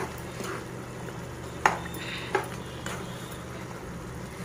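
A slotted spatula stirs a thick, simmering chicken curry in a nonstick pan, over a faint steady sizzle. It knocks lightly against the pan a few times, loudest about a second and a half in.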